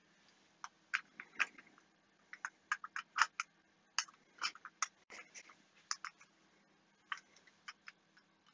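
An irregular series of small sharp clicks, about two dozen, some in quick runs, from fingers pressing the little push buttons of a precision voltage reference.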